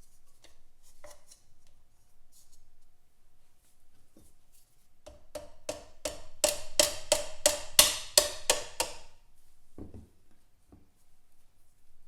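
A hammer tapping on metal: about a dozen quick strikes, roughly three a second, each ringing briefly, louder toward the end of the run before it stops. A duller single knock follows.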